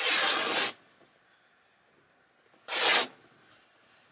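Woven fabric of an Ikea duvet cover torn by hand along the grain in two quick rips: the first about two-thirds of a second long at the start, the second shorter about three seconds in.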